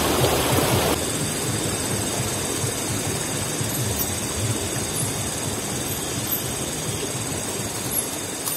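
Steady rushing of a flowing river: an even hiss spread from low to high pitches, a little quieter after about a second.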